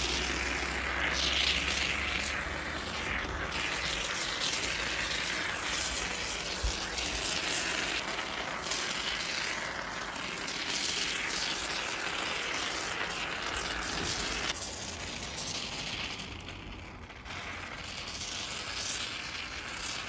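Aerosol can of black expanding pond foam hissing and sputtering as the foam is pushed out through its nozzle, easing off briefly near the end.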